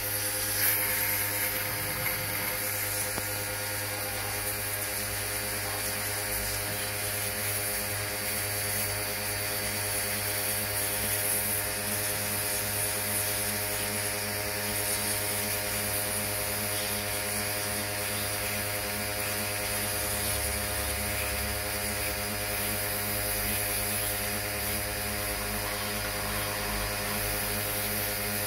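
Pressure washer running steadily, its jet of water hissing as it sprays over an outboard engine block.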